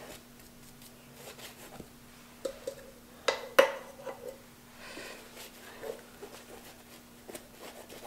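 Paintbrush dabbing and brushing sealer into a fabric hat, with a few light clicks and knocks about halfway through as the brush is dipped into the can.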